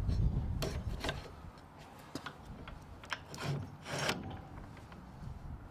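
Scattered light clicks and knocks of metal parts on a trailer's tow hitch coupling and drawbar being handled, about seven in all, with a low rumble in the first second or so.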